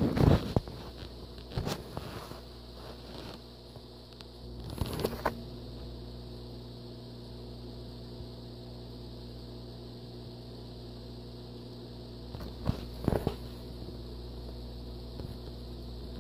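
A steady low electrical hum from aquarium equipment runs throughout. Brief knocks and rustles of the phone being handled come at the start (the loudest), around five seconds in, and again about thirteen seconds in.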